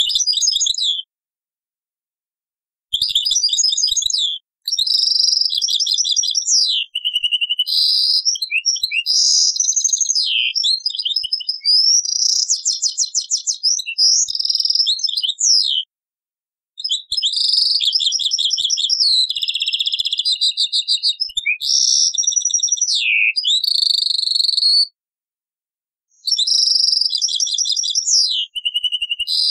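European goldfinch (Algerian goldfinch) singing, played from an old cassette recording: long, fast twittering phrases of trills and buzzy notes, cut by abrupt silent breaks about a second long, three times.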